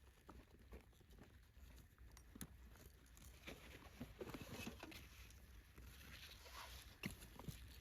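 Near silence, with faint scattered rustling and small clicks and a couple of sharper ticks about two and a half seconds in and near the end.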